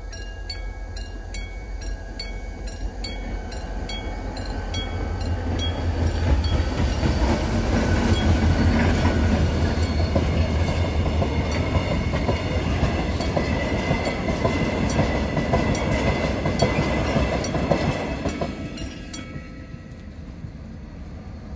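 Level-crossing warning bell ringing at about two dings a second. Then, from about five seconds in, a diesel-hauled freight train of oil tank wagons passes close by: a loud low engine hum and wheels clicking over the rail joints. The train sound falls away a few seconds before the end.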